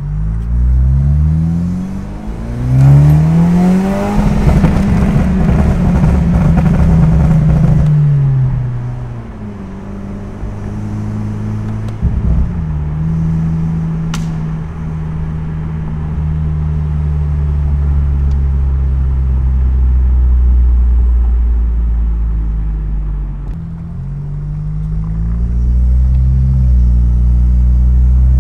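Lexus IS200t's turbocharged 2.0-litre four-cylinder through a catless downpipe and full Ark Grip cat-back exhaust, accelerating with a rising pitch for the first few seconds and turning loud and rough until it eases off. It then cruises at a steady low drone, with the pitch climbing again near the end.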